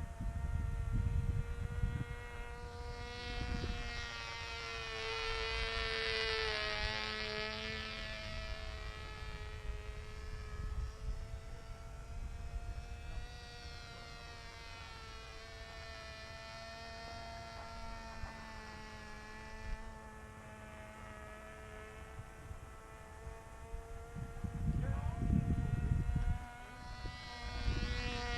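Small model-airplane motor buzzing steadily in flight, its pitch wavering slightly up and down. Gusts of wind hit the microphone near the start and again near the end.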